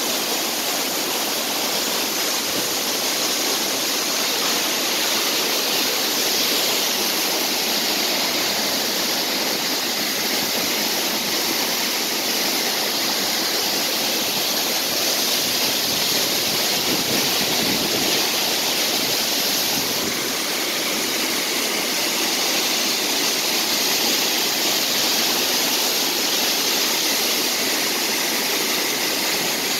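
Waterfall rushing: a steady, unbroken wash of falling water.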